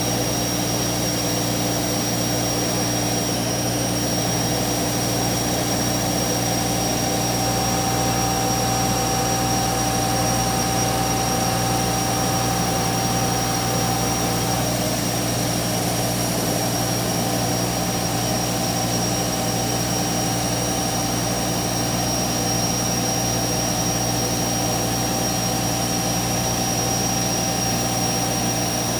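CNC router spindle running steadily as the router trims a clear plastic sheet, with a constant high whine over a steady machine hum.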